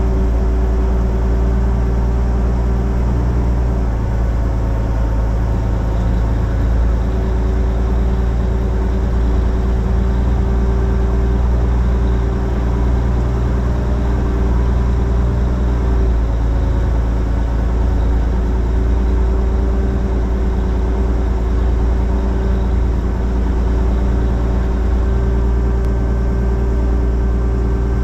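Van's RV-10's piston engine and propeller running steadily at low taxi power, a deep even drone with a steady hum over it.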